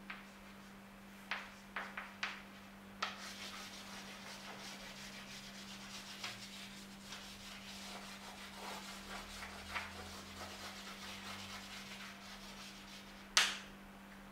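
Chalk on a chalkboard. A few sharp taps come first, then about ten seconds of quick scratching strokes as a ring is shaded in. A loud sharp knock comes near the end.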